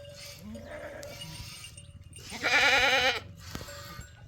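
Bleating livestock: one loud, quavering bleat about two and a half seconds in, with fainter calls before it.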